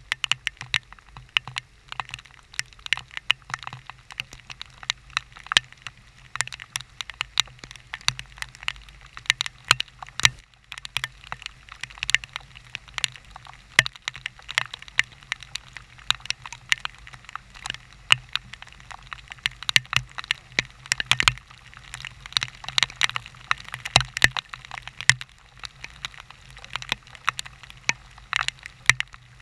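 Thunderstorm rain, with drops hitting close to the microphone as rapid, irregular sharp ticks, over a faint low steady hum.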